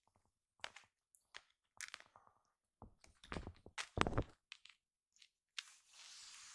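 A kitten playing with a cat teaser stick on a tatami mat: scattered taps, scuffs and knocks of paws and the stick on the straw mat. There is one louder thud about four seconds in and about a second of scratchy rustling near the end.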